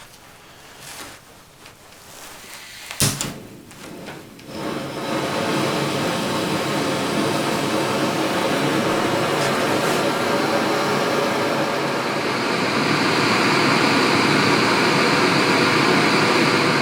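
Backpacking stove lit under a pot of snow being melted for water: a sharp click about three seconds in, then the burner catches about a second later and runs with a steady hiss, a little louder near the end.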